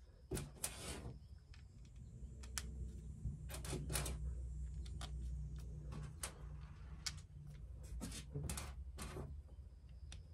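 Scattered light clicks, taps and brief scrapes of small screws being handled and set into the RC car's plastic transmission case, over a faint steady low hum.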